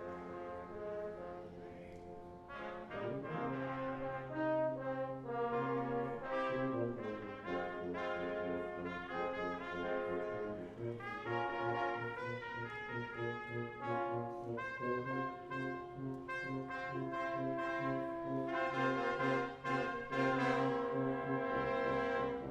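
Brass quintet of two trumpets, French horn, trombone and tuba playing a pop-song medley arrangement, several melodic lines over a tuba bass line.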